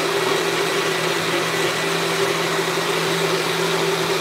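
A kitchen appliance's motor running steadily: an even whirring noise with a low, constant hum, no change in speed.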